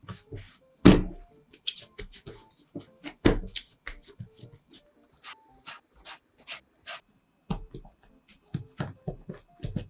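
Hands working in a kitchen with bread dough and utensils: a string of irregular sharp taps, clicks and soft knocks, the loudest about a second in.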